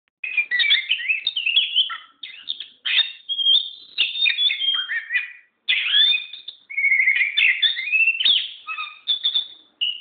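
Oriental magpie-robin (kacir) singing: a rapid, varied song of whistled glides, trills and harsh rattles, in phrases broken by short pauses every second or two.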